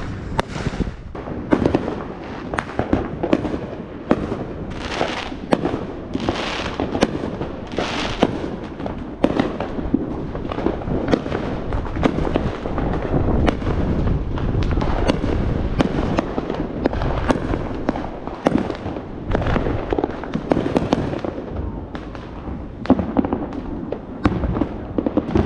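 Consumer fireworks and firecrackers going off in quick succession: a dense, unbroken run of sharp bangs and crackling.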